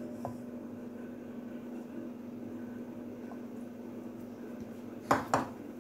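A steady low electrical hum of room background with faint handling noise as filling is placed into a dough-lined dish. Two sharp knocks come close together about five seconds in.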